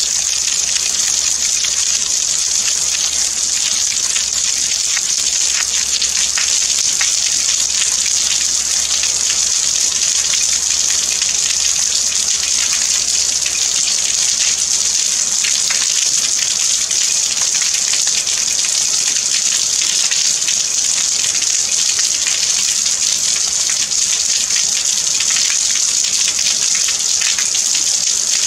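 Steady rain falling, a dense, even hiss with individual drops flecking through it.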